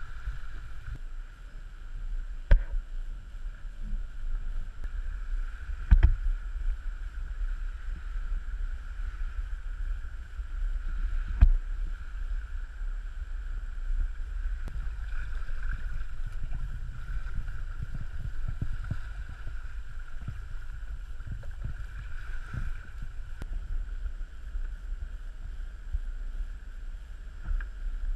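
Wind rumbling on the microphone with water rushing past a sailboat's hull under way. There are three sharp knocks in the first half.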